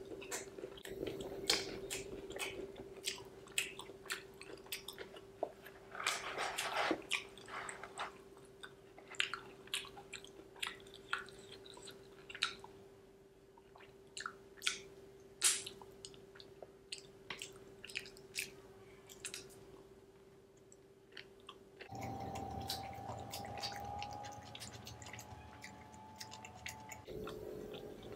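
Close-miked chewing and biting of pizza: irregular wet mouth clicks, smacks and squishes. A faint steady hum runs underneath.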